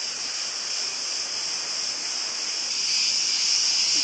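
Steady, high-pitched chorus of insects buzzing without a break, growing a little louder near the end.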